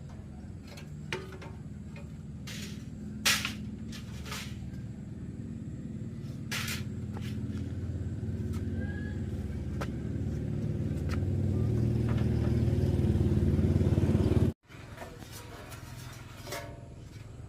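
A motor running with a low steady rumble that grows gradually louder, then cuts off abruptly about two-thirds of the way through. A few sharp metallic knocks come in the first few seconds.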